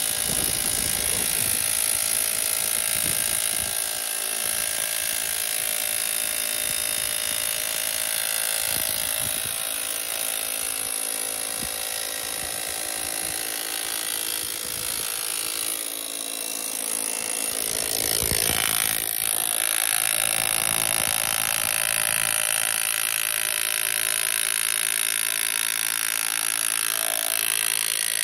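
Hilti rotary hammer in hammer mode driving a steel lightning-protection earth rod down into the ground, running steadily, with a brief change in its sound about two-thirds of the way through.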